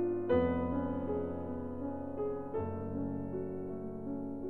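Slow background piano music: sustained chords, with a new chord struck just after the start and another about halfway through, each left to ring and fade.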